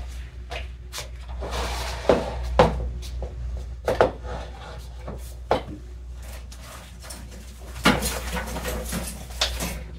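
Household items being handled off-camera: scattered knocks and clunks as things are moved and set down, with bursts of rustling in between. A steady low hum runs underneath.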